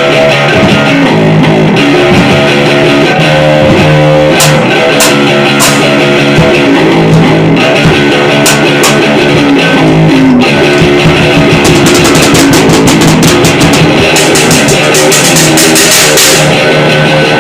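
Loud, distorted garage punk noise-rock band playing: fuzzy electric guitar, bass and drum kit with crashing cymbals, a dense, unbroken wall of sound.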